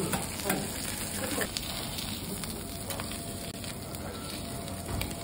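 Shrimp heads sizzling on a hot teppanyaki griddle, a steady hiss, with a few sharp clicks and scrapes of a steel spatula pressing them against the plate.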